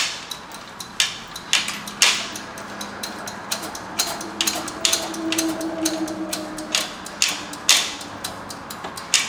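Floor jack being pumped up under a car's rear lower control arm to take the coil spring's load: a string of metallic clicks and clanks, about two a second, with a faint squeak midway.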